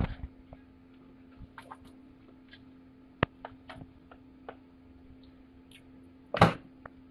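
Light taps and clicks of sliced onion rings and potato pieces being handled on an aluminium-foil-lined baking tray, with one louder crinkle of foil about six seconds in. A steady low hum runs underneath.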